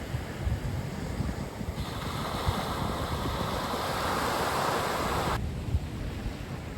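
Ocean surf rushing on a beach, with wind rumbling on the microphone. A louder wash of surf builds about two seconds in and cuts off suddenly about five seconds in.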